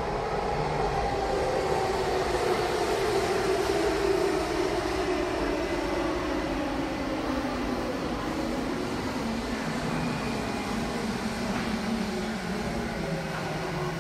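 Eidan (Tokyo Metro) 9000 series electric train pulling in and braking to a stop: the motor whine glides steadily down in pitch over about ten seconds, over wheel-on-rail noise. A low steady hum follows once it stands.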